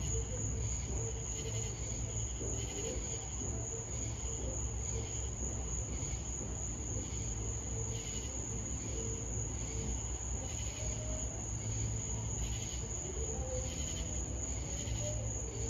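Crickets at night: a continuous high-pitched trill, with a slower chirp pulsing about once a second and a low steady hum underneath.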